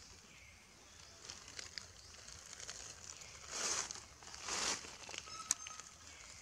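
Dry leaf litter rustling and crunching in two short bursts about a second apart, a little past the middle, with scattered faint crackles around them.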